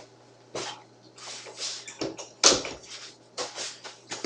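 Microphone being handled: irregular rustles and several knocks, the loudest about two and a half seconds in, over a steady low electrical hum.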